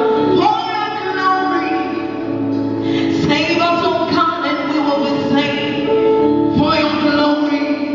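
Voices singing a worship song with musical accompaniment, sustained sung notes filling a large hall.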